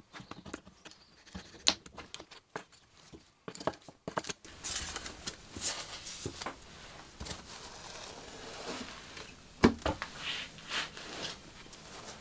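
Old upholstery fabric and stuffing being pulled and torn off a wooden stool frame: dry rustling and ripping. Scattered small clicks come first, and there is one sharp knock near the end.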